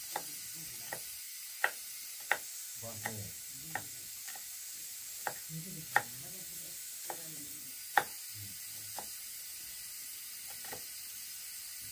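Large kitchen knife chopping small red onions on a round wooden chopping board: irregular sharp knocks, roughly one a second, the loudest about six and eight seconds in, over a steady hiss.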